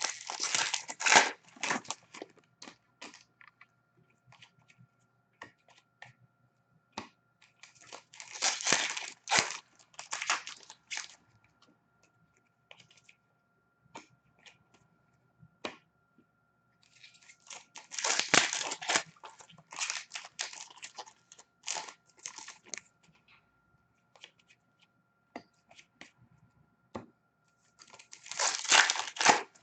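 Hockey card pack wrappers being torn open and crinkled, in four bursts of a few seconds each, with scattered light clicks between them as the cards are handled.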